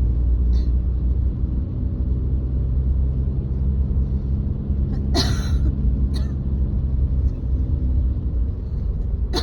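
Steady low rumble of a car's engine and road noise heard inside the moving car. A short breathy noise comes about five seconds in, and a fainter one a second later.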